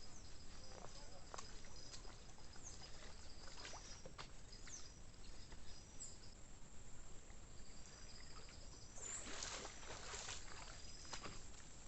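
Light knocks and clicks on a kayak on the water, with a burst of splashing about nine seconds in. Faint high chirps go on behind.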